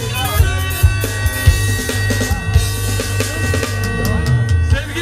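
Amplified folk dance music for a halay line dance: a steady drum beat under long held melody notes.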